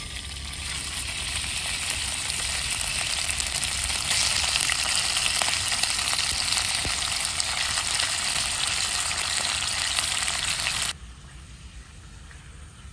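Sliced raw meat sizzling as it is dropped piece by piece into hot oil in a wok, the frying getting louder about four seconds in as more meat goes in, then dropping abruptly to a much quieter hiss near the end.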